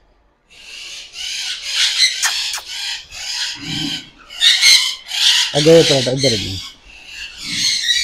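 Caged parrots screeching: a rapid run of harsh, raspy calls one after another, beginning about half a second in. A short low voice-like sound cuts in about six seconds in.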